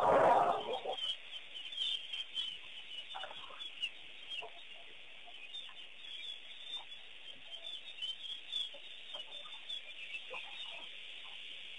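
Wild birds chirping and calling, a dense chatter of many small calls throughout, with gamebird-like clucking calls here and there. A loud, brief rushing noise in the first second stands out above the birds.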